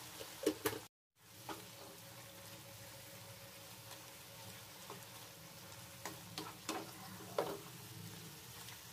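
Kohlrabi pieces and masala frying in a nonstick pan with a steady low sizzle, stirred by a spatula that scrapes the pan several times. The sound cuts out briefly about a second in.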